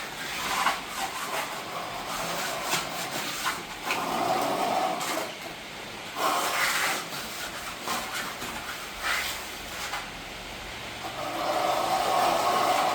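Plastering trowel scraping and smoothing wet cement render on a wall, in irregular strokes of a second or two, the longest near the end.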